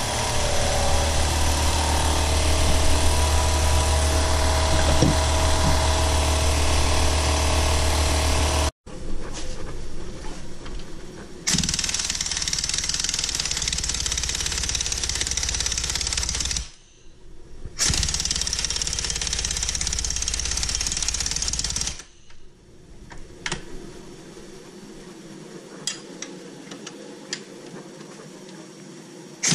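Pneumatic impact wrench hammering on a rear suspension bolt in two long bursts of about five and four seconds, with a short pause between. A steady loud machine noise with a deep hum comes before them, and faint clicks of tool handling follow.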